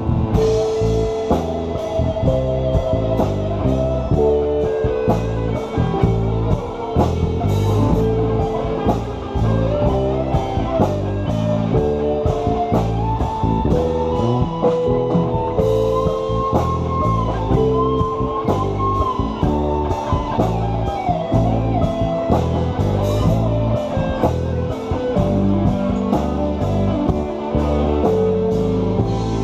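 Live blues-rock band playing an instrumental break: drum kit with steady cymbal strokes, bass, and electric guitar, with a lead line that climbs higher near the middle of the break.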